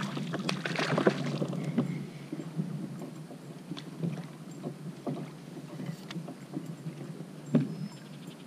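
Scattered clicks and knocks of a spinning rod, reel and kayak as a hooked bass is fought and reeled in. The clicks are busiest in the first two seconds, and there is one louder knock near the end.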